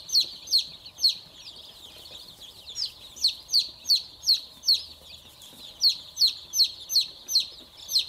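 A brood of young chicks peeping: loud, high, falling chirps about two a second over a steady chorus of fainter peeps, with a short lull about a second in.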